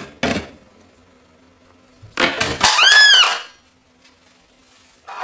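A hammer knocking on a tin can, the last two blows within the first half second. About two seconds in comes a louder noisy burst lasting over a second, with a high squeal that rises and falls.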